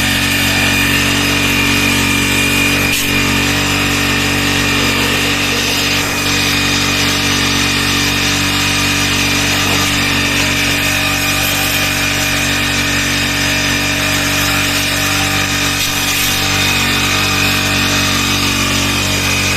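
Electric pressure-washer pump for AC jet cleaning running steadily: a constant motor hum under the hiss of the water jet.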